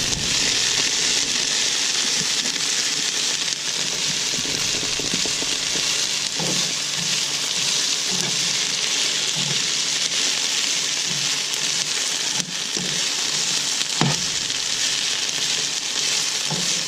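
Chopped bell peppers and other vegetables sizzling steadily as they sauté in a pan over medium heat, with a few light knocks, twice near the middle.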